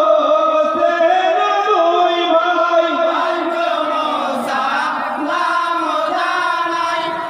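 Men's chorus singing a Bengali jari-style salam song together, holding long notes.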